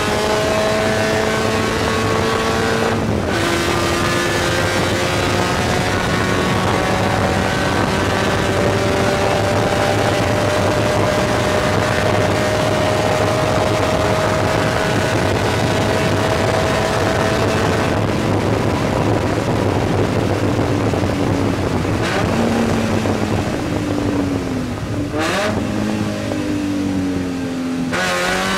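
Spec Miata race car's four-cylinder engine heard from inside the cockpit on a wet track. It upshifts about three seconds in, then the revs climb slowly in one gear for a long pull. About two-thirds of the way through, the engine note fades under a steady hiss, and it shifts up and down again near the end.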